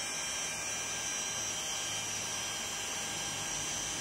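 RS-775 size 12 V brushed DC motor free-running with no load at 12 volts: a steady high whine over a hiss from the spinning armature and brushes.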